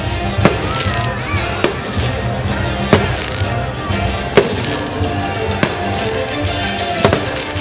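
Aerial fireworks bursting over the show's music soundtrack: about six sharp bangs, irregularly spaced a second or so apart, the loudest a little over four seconds in.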